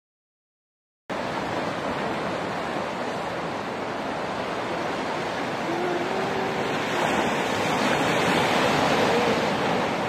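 Sea surf washing in over dark shoreline rocks: a steady rushing wash that starts suddenly about a second in and swells a little near the end.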